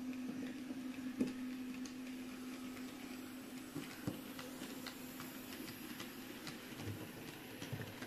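H0-scale model train passing: the red diesel locomotive's motor gives a steady hum that fades as it goes by, while the wheels of the trailing passenger coaches keep up a light, irregular ticking over the rail joints.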